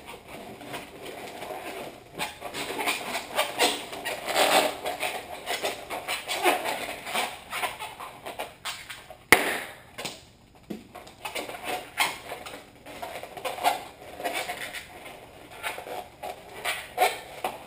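Latex twisting balloon squeaking and rubbing in irregular bursts as it is twisted into a balloon animal, with a single sharp snap about nine seconds in.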